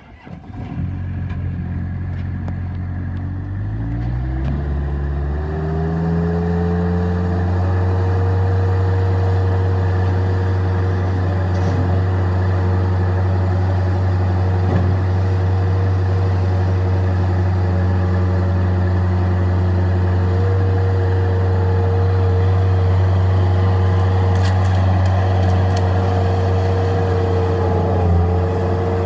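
Bobcat 753 skid steer loader's diesel engine starting up about half a second in, climbing in speed over the next few seconds, then running steadily at a raised speed.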